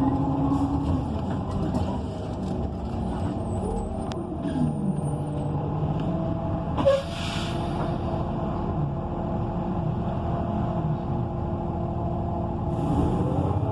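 Interior sound of a 2014 ENC EZ Rider II BRT transit bus with a Cummins Westport ISL G natural-gas engine: the engine note falls as the bus slows, a sharp air-brake hiss about seven seconds in, then steady running. Near the end another air hiss comes and the engine note rises again.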